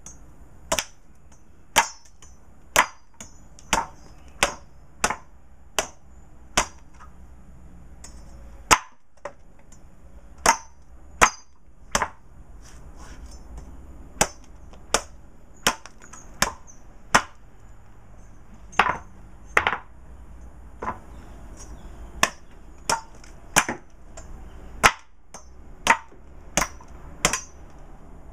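Machete blade chopping into a coconut's fibrous husk: a long run of sharp chops about a second apart, with a few short pauses, as slices of husk are cut away.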